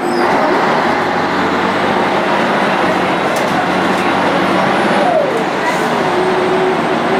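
Scania L113CRB bus's diesel engine running steadily under way with a steady whine. About five seconds in the pitch falls, as the engine revs drop, then settles again.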